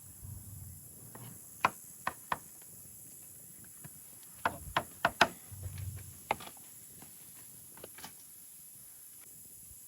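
Irregular sharp knocks and taps of cooking gear and food being handled, single clicks and quick groups of two or three, with a couple of brief low thuds.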